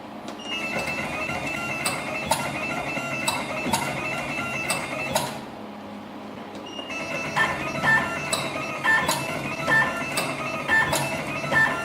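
Joyfay SWT508-NX2 automatic wire stripping and twisting machine running a job: a steady high motor whine with sharp clicks repeating every half second or so as it cycles. It stops briefly a little past halfway, then starts again with a quicker, regular run of clicks.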